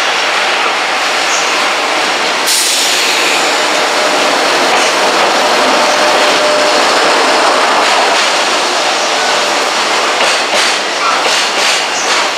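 Freight train rolling past close by: a loud steady rumble and rush of wheels on rail, with sharper wheel clacks over the rail joints near the end.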